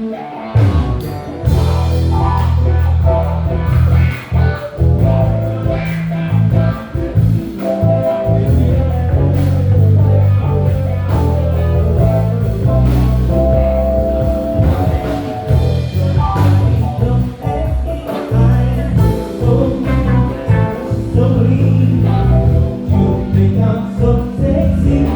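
Live band playing a blues-soul groove: electric bass, drum kit, guitar and keys, with a sustained lead melody over a heavy bass line.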